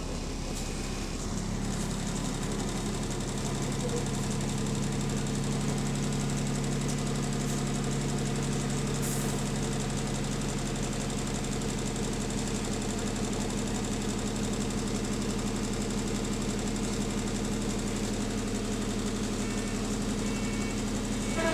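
Arriva London T212 double-decker bus's diesel engine idling steadily with a rattly, knocking note.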